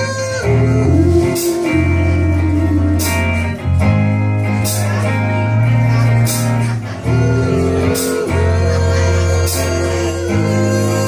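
Live rock band playing: electric guitar and electric bass holding long notes over a drum kit, with cymbal crashes every second or two. A male voice sings at times.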